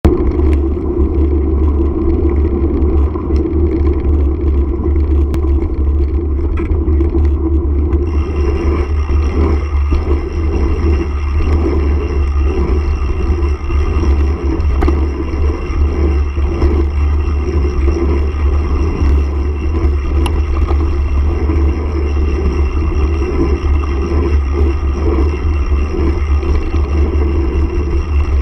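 Mountain bike descending a gravel and rocky trail at speed: wind buffets the handlebar-mounted camera's microphone with a heavy low rumble, over tyres crunching on stones and the bike rattling.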